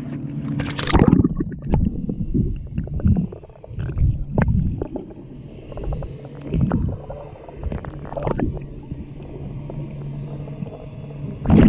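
Splash as the microphone goes under the lake surface about a second in, then muffled underwater sloshing and gurgling over a steady low hum. A second splash near the end as it comes back out.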